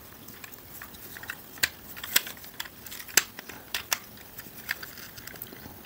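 Plastic parts of a Transformers Studio Series Ratchet figure clicking and knocking as they are pushed and tabbed into place during its transformation: irregular sharp clicks, several a second at times.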